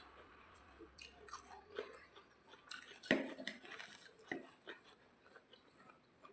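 Close-miked eating sounds: chewing and biting into a rice-and-vegetable thali, with wet mouth smacks and short crunchy clicks, the loudest about three seconds in, over a faint steady high hiss.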